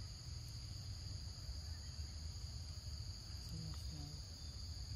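Steady, unbroken high-pitched drone of forest insects, over a low rumble.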